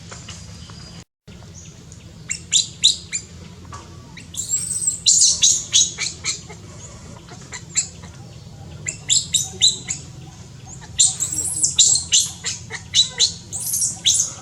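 High-pitched animal chirps in quick runs of several, coming in bursts every few seconds over a steady low hum, with a brief cut-out in the sound about a second in.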